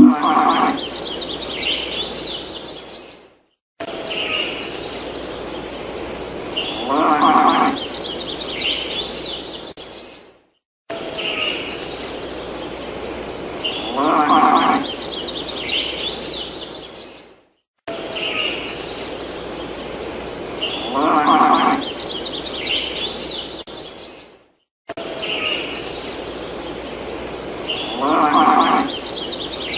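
A looped outdoor ambience track of birds chirping, with a low, drawn-out animal call about halfway through each repeat. The loop restarts roughly every seven seconds, with a brief break each time.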